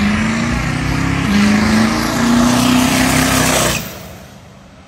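Jelibuilt race truck's 7.3L Powerstroke turbo-diesel V8 at full throttle on a drag-strip launch. It rises in pitch, dropping back twice as it shifts gears, and falls away sharply near the end as it pulls down the track.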